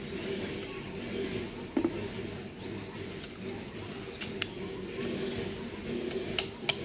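A bird gives a short falling chirp three times over a steady low hum, and a few sharp knocks sound, the loudest two near the end.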